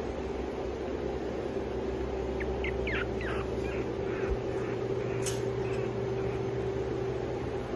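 Steady mechanical room hum, like a fan or air conditioner, with a few faint, short, high squeaks about two and a half to three seconds in and a single sharp click a little past the middle.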